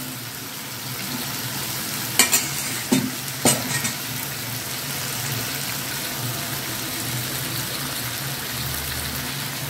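Masala-coated anchovies sizzling steadily in hot oil on a dosa griddle (tawa), with a few sharp clicks of a steel spatula against the pan between about two and four seconds in.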